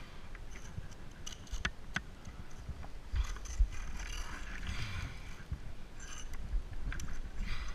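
Neoprene-gloved hands and wetsuit scraping and scuffing over wet sandstone during a climb, with a dangling carabiner clinking against the rock in a few sharp clicks.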